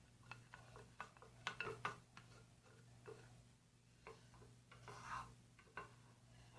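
Faint, irregular clicks and scrapes of a stirring stick against a bowl as a thick body-wash slime mixture is stirred, over a steady low hum.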